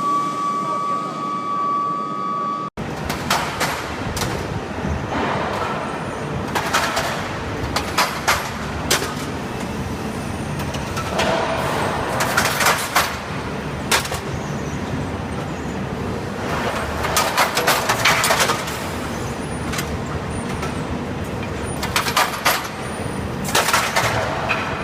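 Industrial din in an induction furnace melting shop. For the first few seconds a steady high whine, typical of a medium-frequency induction furnace under power. After an abrupt cut, a constant rumbling noise broken by irregular sharp metallic clanks, several clustered close together.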